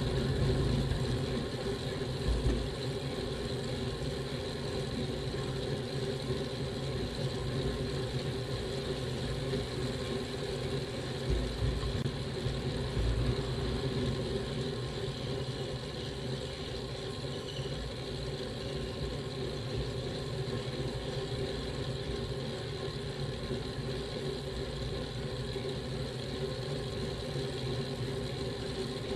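Steady wind and road rumble picked up by a bicycle-mounted camera while the bike is ridden uphill, with a couple of brief low thumps from bumps in the road.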